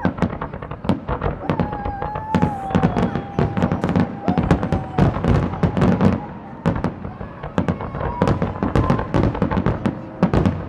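Fireworks finale barrage: a rapid, dense run of overlapping bangs and crackles, several bursts a second, without a break.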